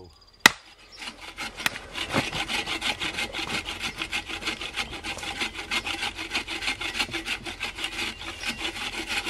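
One sharp knock of a hammer on a splitting wedge about half a second in, then a bow saw cutting through a log in rapid, steady back-and-forth strokes.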